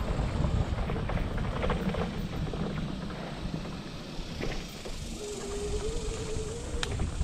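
Wind rumbling on the microphone of a handheld or body camera during a walk on a dirt trail, heavier in the first half, with scattered footfalls and clicks. About five seconds in, a thin wavering tone sounds for under two seconds.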